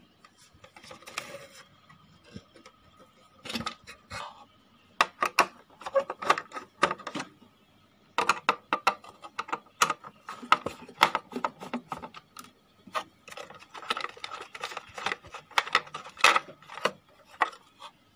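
Irregular clicks, knocks and scrapes of a screwdriver working screws out of an amplifier's chassis, with the metal and plastic parts being handled, busiest from about five seconds in until near the end.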